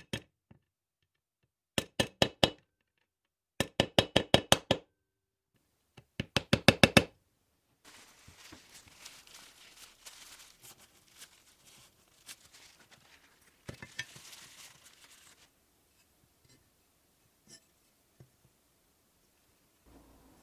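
A hand deburring tool twisted back and forth in a drilled hole in a metal angle bracket, in three quick runs of sharp scraping strokes. Then a paper towel is rubbed over the metal, a softer scrubbing rustle lasting several seconds, followed by a few faint clicks.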